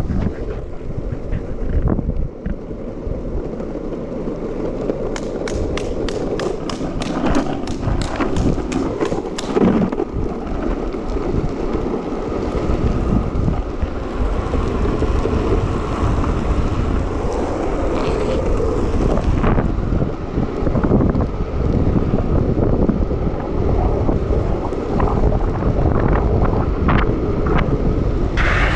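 Longboard wheels rolling fast on asphalt, with heavy wind buffeting the action-camera microphone. A run of sharp, regular clicks comes from about five to ten seconds in, and the rolling and wind noise grow a little louder after that.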